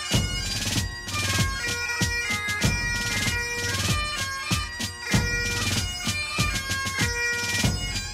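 Great Highland bagpipe music for the dance: a pipe tune over the steady drone, with a regular beat.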